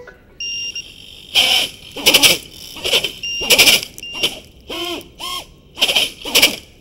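The brushless motors of a 5-inch FPV quadcopter (iFlight Xing 2306 2450KV with three-blade props) spinning up in about nine short whining throttle bursts. Between the bursts come a few high electronic beeps from the drone's buzzer.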